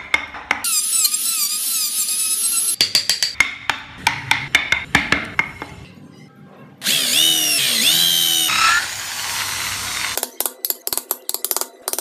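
Wood carving tool sounds. A small power tool whines with a wavering pitch, then comes a run of sharp knocks from chisel work on the wood. A drill follows, its whine dipping and rising in pitch as it bores into the wood, and rapid knocks return near the end.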